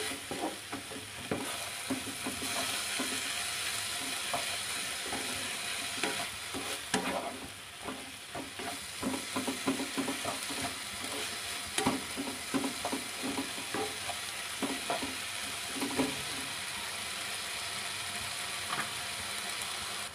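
Minced chicken with onion and garlic sizzling in a nonstick frying pan while a spatula stirs and scrapes it, with many irregular knocks against the pan. Near the end the stirring stops and a steady sizzle is left.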